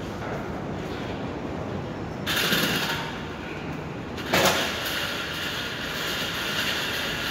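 Steady rushing city noise, with two louder hissing surges, one starting about two seconds in and one about four and a half seconds in, each fading slowly.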